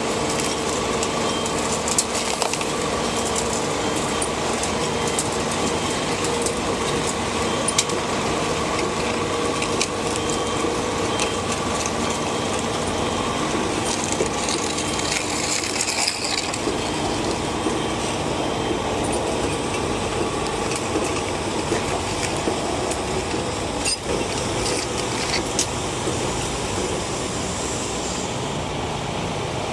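Caterpillar 374 tracked excavator's Cat C15 ACERT diesel engine running steadily while its steel tracks clank and knock as it travels slowly.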